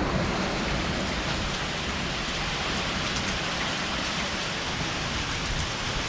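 Heavy rain pouring steadily, driven by strong wind.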